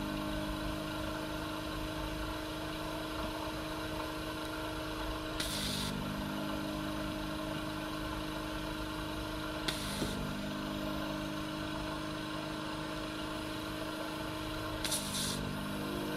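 Electric vacuum pump of a home-made desoldering rig running with a steady hum. Three short hissing sucks of air come about five, ten and fifteen seconds in as the valve on the suction tube is opened to pull molten solder from the circuit board, and the pump's tone shifts with each one.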